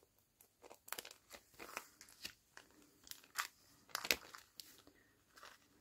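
Clear cellophane bag crinkling faintly as it is handled, in short irregular crackles.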